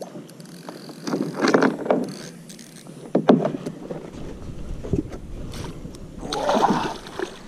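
A hooked perch splashing at the surface beside a kayak as it is landed in a net. Several short bursts of splashing and knocks come about a second in, near the middle and again near the end.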